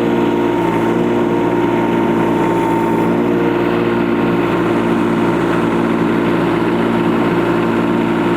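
Kubota U10-5 mini excavator's diesel engine running steadily, with an even, unchanging drone.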